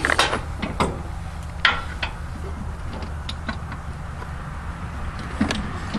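Scattered light clinks and knocks of hand tools and metal parts being handled during a tractor repair, over a steady low hum.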